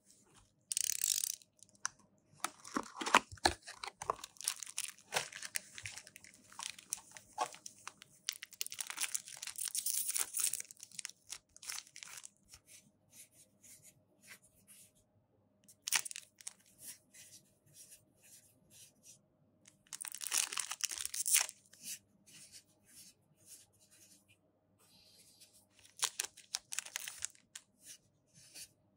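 Packaging opened by hand: repeated bursts of plastic wrap and foil trading-card booster packs being cut, torn and crinkled, with quieter short clicks of cards being handled between the bursts.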